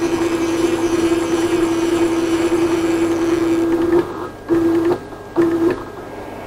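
Stepper motors of a 6012 CNC router whining at a steady pitch as the gantry is jogged from a handheld pendant to position the tool over the workpiece. There is one long move of about four seconds, then two short jogs of about half a second each.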